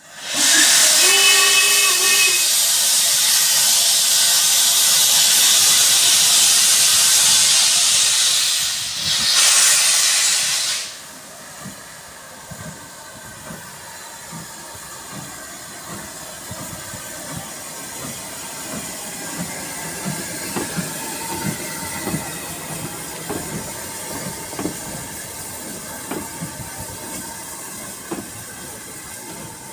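LMS Ivatt Class 2MT 2-6-2T steam locomotive 41312 starting away: loud hiss of steam from its open cylinder drain cocks for about the first ten seconds, with a short whistle note about a second in. The hiss then stops suddenly and the quieter, repeated exhaust beats of the engine pulling away are heard.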